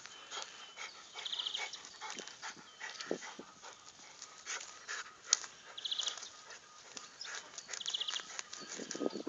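Dog digging in loose garden soil with its nose down: irregular scraping and scratching of earth, with sniffs and snuffles as it hunts for an animal underground.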